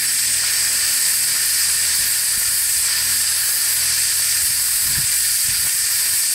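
Steam boiler's safety (pop-off) valve blowing off in a steady hiss, only partly open and holding the boiler a little under 90 psi.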